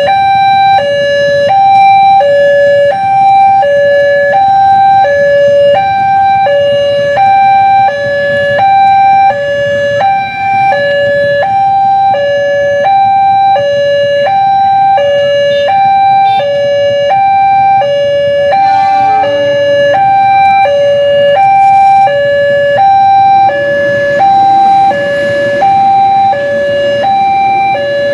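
Railway level-crossing warning alarm sounding an electronic two-tone signal, a high and a low tone alternating evenly about once a second, over the hum of waiting motorcycle traffic. It is the sign that a train is approaching and the crossing is closed.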